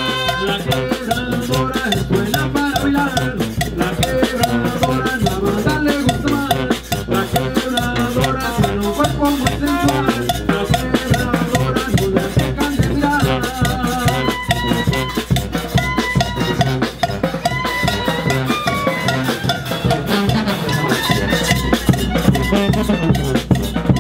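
Live banda de viento: trumpets and trombones playing a Latin dance tune over drum kit and bass drum, with a steady beat.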